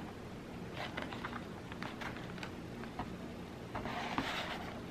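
Faint scattered clicks and light scraping as a backing is worked under the little plastic tabs of a cheap picture frame, with a longer scraping rub about four seconds in.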